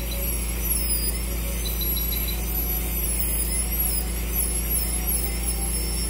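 High-speed dental handpiece (dental drill) running continuously on a dog's tooth, a high whine that wavers slightly in pitch over a low steady hum.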